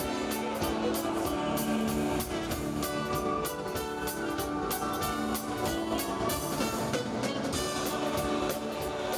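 Music with a steady beat over sustained held chords.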